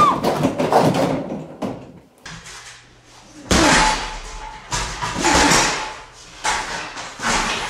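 A loud noisy sound fades out over the first second or two. Then, from about halfway in, come about four punches on a heavy punching bag hung from a freestanding metal stand, each hit followed by the stand rattling and clanking for about a second.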